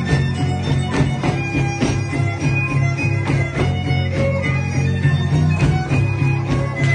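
Loud dance music with a held low drone and regular percussive strokes.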